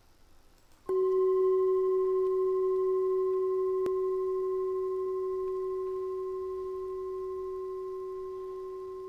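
A singing bowl struck once about a second in, ringing on with one steady tone that fades slowly.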